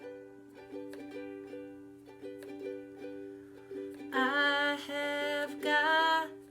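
Ukulele playing a song, and a voice starts singing along about four seconds in.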